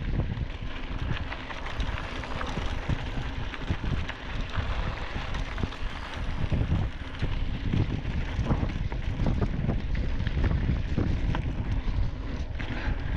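2016 Giant Trance 2 full-suspension mountain bike rolling fast down a rocky dirt trail: wind buffeting the microphone, with the rumble of the tyres on loose gravel and scattered knocks and rattles from the bike over the rocks.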